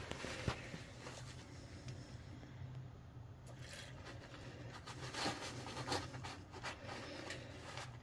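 Faint scrapes and rubbing of gloved hands handling a WD-40 spray can and its straw at a door hinge, a few short scratchy strokes, over a steady low hum.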